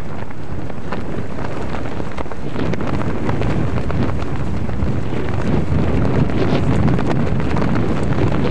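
Wind blowing across the camera microphone: a steady, fluttering noise that gets louder about two and a half seconds in.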